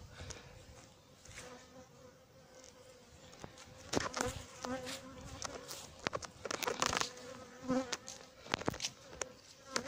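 Honey bees buzzing around the person, a steady hum with single bees buzzing loudly close past several times, loudest about four and seven seconds in. These are defensive bees attacking after being released from a bee vacuum.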